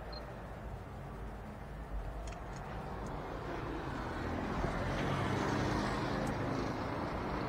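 Steady street-traffic and vehicle rumble that grows louder about halfway through, with a few faint clicks early on.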